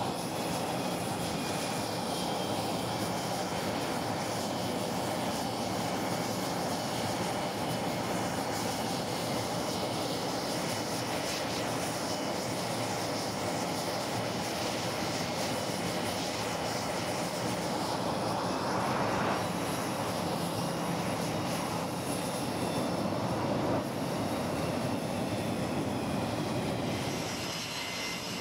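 Jet engines of an EA-6B Prowler, its twin turbojets, running on a carrier flight deck as it taxis up to the catapult: a steady, loud rush with a faint high whine over it.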